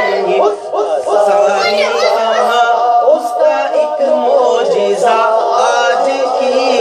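Male voice singing an Urdu devotional naat, the phrases continuing without a break.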